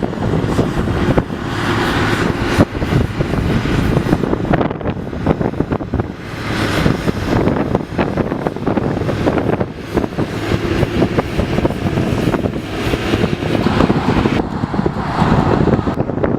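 Heavy wind buffeting the microphone in gusts, over the steady running of tractor engines working the silage harvest.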